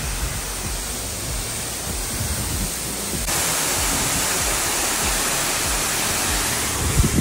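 Large waterfall pouring down a rock face into a pool: a steady rush of falling and splashing water. It gets louder and brighter about three seconds in, with a short low thump near the end.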